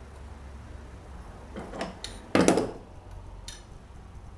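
Hand tools and engine parts being handled: a short scrape, then a sudden loud knock about two and a half seconds in, and a light click a second later.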